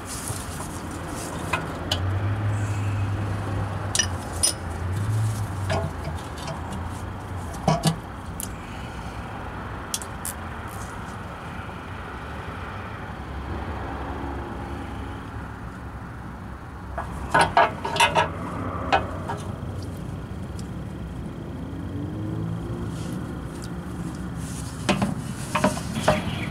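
Scattered metallic clinks and knocks of a ratchet, socket and bolts while unbolting and lowering a steel automatic-transmission oil pan, with a cluster of sharp clanks late on, over a low hum that comes and goes.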